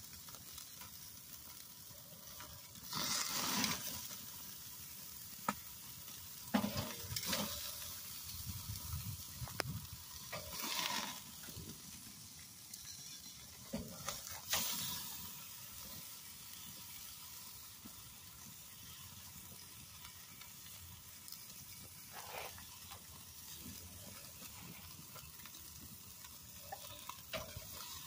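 Steaks sizzling on the grate of a charcoal kettle grill over open flames, with louder surges of sizzling every few seconds as the steaks are moved with metal tongs. A few sharp clicks of the tongs on the grate.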